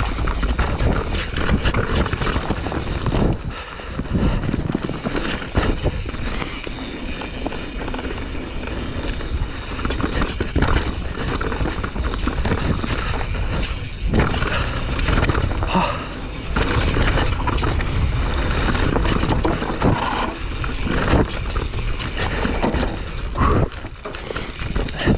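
Mountain bike ridden down rocky forest singletrack: tyres rolling over dirt, roots and rocks, with the bike rattling and knocking sharply over bumps throughout. A constant low rumble of wind on the microphone lies under it all.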